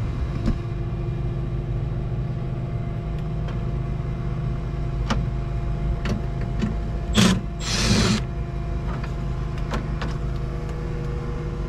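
A steady low machine hum, with scattered light clicks and two short scraping rushes about seven seconds in, as the front access panel of a Hayward gas pool heater is unfastened and taken off.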